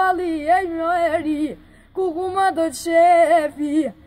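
A boy singing unaccompanied in a high, unbroken voice: two phrases of held, wavering ornamented notes, with a short breath pause between them about one and a half seconds in.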